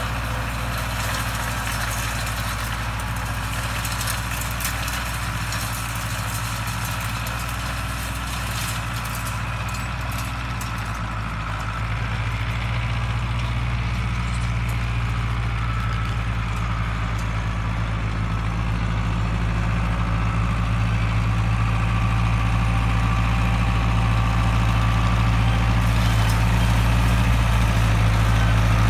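Diesel engine of a Case International 844XL tractor running steadily while it pulls a rotary hay rake. It grows louder over the second half as the tractor comes back close.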